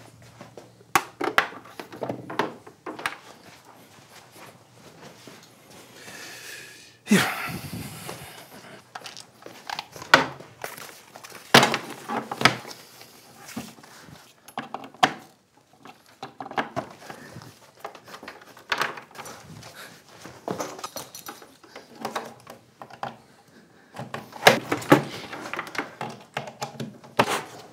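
Scattered knocks, thunks and clatter of things being handled on a wooden desk, with electrical cords and a power strip being plugged and moved about. A short rush of noise comes about seven seconds in.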